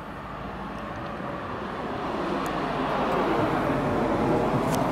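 Motor vehicle going by, an even rush of engine and road noise that grows steadily louder as it approaches.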